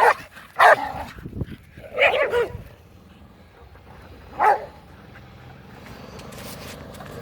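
Dog barking, about four short barks spread over the first few seconds, then it stops.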